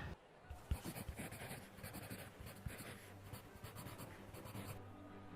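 Faint, irregular scratching with light clicks, like a pen scratching on paper, stopping about a second before the end.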